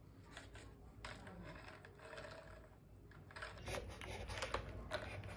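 Faint handling noises from a foam model plane: light taps, rubs and scrapes as it is turned in the hands. They get busier in the second half as the plane is set down on its wheels on a table.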